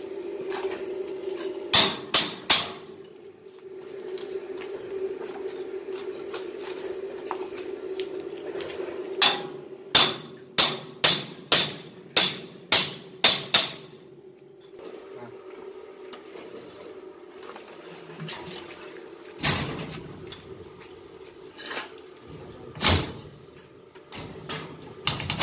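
Hand hammer striking at the foot of a steel door frame being fitted into a doorway. There are three quick blows, then a run of about ten at roughly two a second, then a few single blows near the end.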